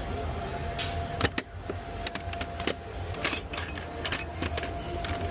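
Metal tools clinking and clattering against each other as they are picked up and handled, a quick series of sharp clinks starting about a second in.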